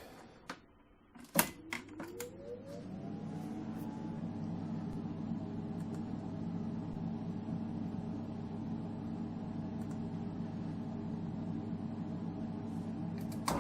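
EMCO Compact 5 lathe spindle motor starting after a few switch clicks: a whine rises for about two seconds, then runs steadily.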